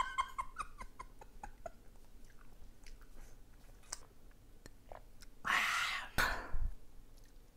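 A person chewing konjac rice cakes with her mouth burning from mala spice, giving short pained vocal sounds over the first second or so. After a sip of water there is a loud breathy exhale near the end.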